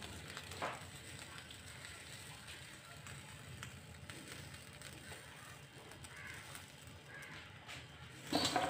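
Faint sizzling of egg and ghee frying in a nonstick pan, with a soft tap about half a second in.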